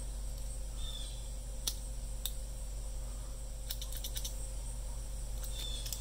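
A scatter of small, light metallic clicks and taps as the layers of a Swiss Army knife are handled, with the scissor layer being fitted onto the pins. A steady low hum runs underneath.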